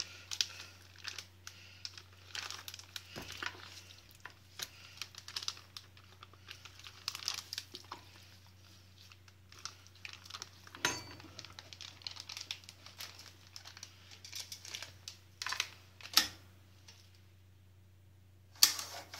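Clear plastic heat-seal bag crinkling and rustling in bursts as raw meat is spooned and ladled into it and the bag is handled. A few sharp knocks come over a steady low hum.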